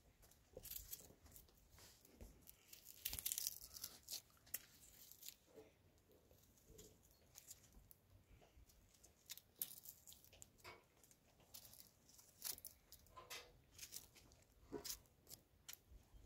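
Faint dry crackling and tearing of papery red onion skin being peeled off with a knife, in scattered short scratches, loudest about three seconds in.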